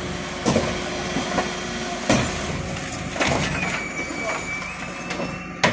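Terberg OmniDEL hydraulic bin lifter on a refuse truck raising and tipping a wheelie bin into the hopper, with a steady mechanical noise of the running truck and its hydraulics. The bin knocks against the lifter several times as it is tipped and shaken empty, with the sharpest bang near the end. A thin whine holds for about a second in the middle.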